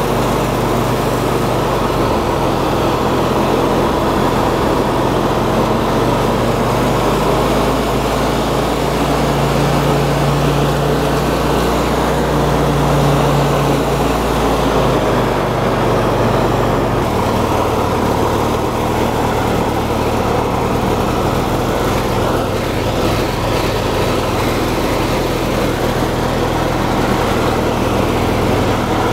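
18 horsepower Briggs & Stratton engine of a Murray riding lawn mower running steadily as the mower is driven across grass, its tone shifting slightly a few times. The owners say it runs like a champ but its gummed-up carburetor needs a full rebuild.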